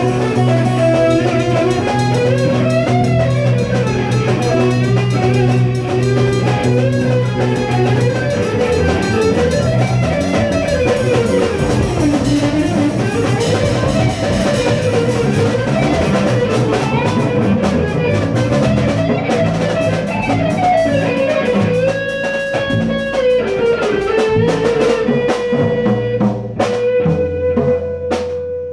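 Rock band improvising live: a guitar plays a lead line that bends and wavers up and down over bass and drum kit. Near the end the line settles into long held notes.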